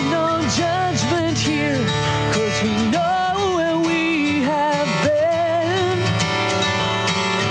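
Background music: a song with guitar and a bending melody line, steady in loudness.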